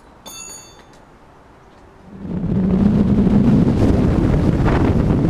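Wind buffeting the microphone of a camera mounted outside a car at highway speed, mixed with road noise. It starts suddenly about two seconds in and stays loud and steady. Before it, the sound is quiet, with a brief high-pitched tone about half a second in.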